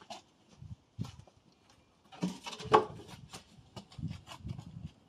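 Irregular light knocks and clatters from things being handled, busiest and loudest a little past the middle.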